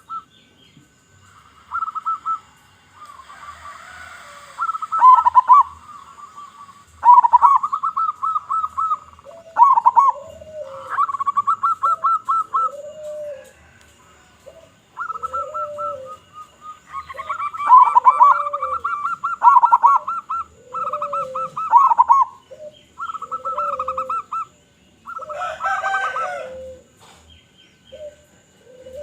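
Zebra doves (perkutut) cooing: repeated phrases of rapid staccato notes, each dropping in pitch at the end. From about a third of the way in, a lower, drawn-out coo repeats about every second and a half underneath, and near the end there is a brief harsher call.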